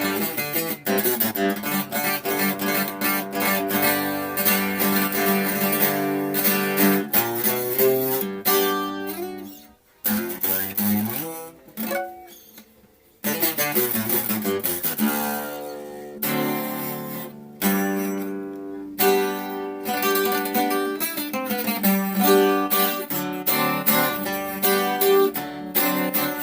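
Acoustic guitar played solo, with strummed chords and picked notes. The playing dies away about ten seconds in, with a lone note, and starts again a few seconds later.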